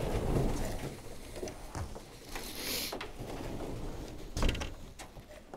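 Rustling and scattered knocks of someone moving about and stepping out of a wooden pigeon loft, with a brief hiss near the middle and a single thump about four and a half seconds in.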